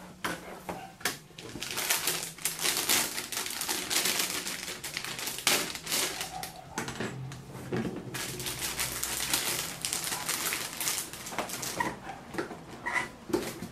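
Plastic anti-static bag crinkling and rustling as a motherboard is pulled out of it and handled, with scattered knocks from the cardboard box. The crinkling is dense through most of the stretch, thinning to a few separate taps near the end as the board is set down.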